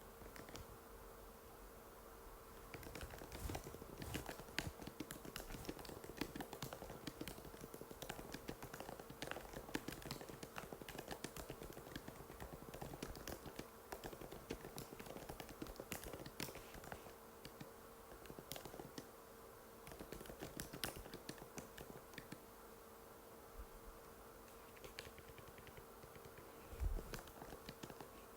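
Typing on an Apple MacBook butterfly keyboard: quick, quiet key clicks in irregular runs that thin out toward the end. One soft thump comes near the end, and a faint steady hum runs underneath.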